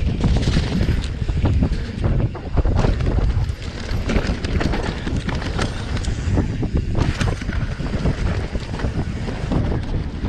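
Enduro dirt bike running through mud, its engine rumble mixed with wind buffeting the microphone and many irregular knocks and pops.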